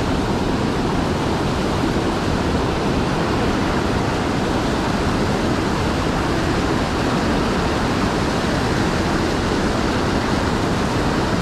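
Fast-flowing river water rushing, a steady loud rush with no breaks.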